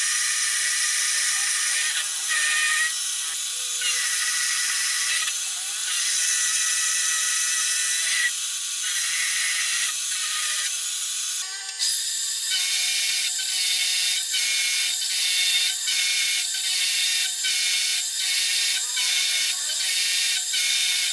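Milling machine end mill cutting a slot into a round metal blank: a steady, high-pitched cutting noise. About halfway through it breaks off briefly, then carries on with a regular pulse about twice a second.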